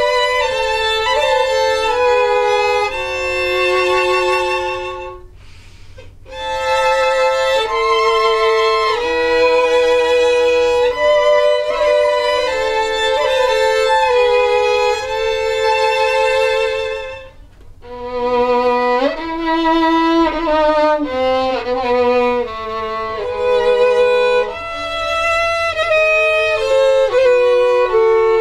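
Three violins playing a csárdás together, in long held notes with vibrato. The playing breaks off briefly about five seconds in and again near eighteen seconds, and lower notes join when it resumes.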